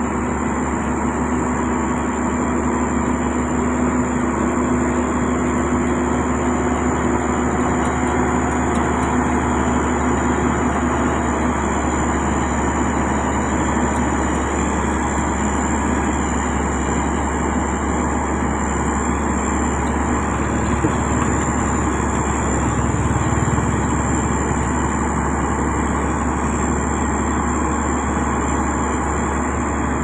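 Sany STG190C-8S motor grader's diesel engine running steadily while it works, with a constant thin high whine over it.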